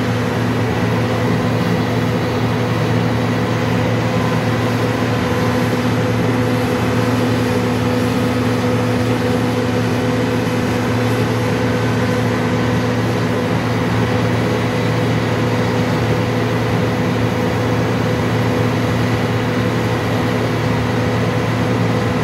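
John Deere 9870STS combine's diesel engine running steadily as the machine creeps forward and turns, an even mechanical drone with a faint steady whine above it.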